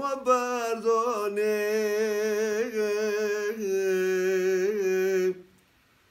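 An older man singing a Kurdish folk song unaccompanied, holding long notes that waver slightly. The voice stops about five and a half seconds in, leaving near silence.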